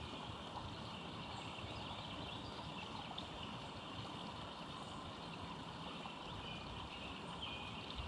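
Steady outdoor ambient noise, an even hiss-like background with no single event standing out, with a few faint, short, high bird chirps over it.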